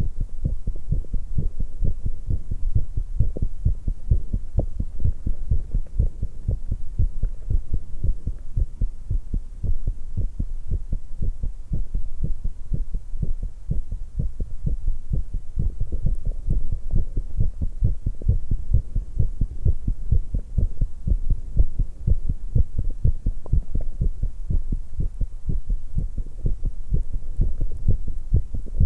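A young woman's heartbeat after exercise, pounding in a steady, quick run of low thumps that does not let up.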